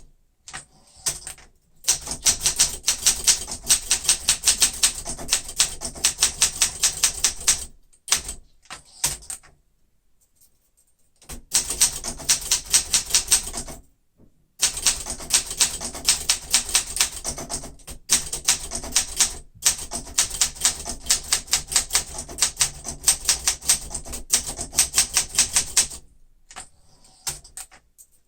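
1972 Olympia SM9 manual typewriter being typed on quickly: long runs of rapid, crisp typebar strikes, many a second, with a few short pauses, the longest about eight to eleven seconds in and another near the end.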